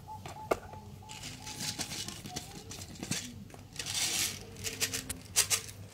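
Handling noise of a plastic toy pistol and its cardboard box: light clicks and knocks with short rustling scrapes as the pistol is moved about and set down in the box.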